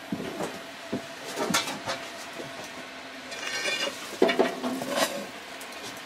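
An iron rod clattering and scraping in a brick firebox: a few light knocks at first, a grating scrape a little after three seconds in, then several loud metallic clanks about four to five seconds in.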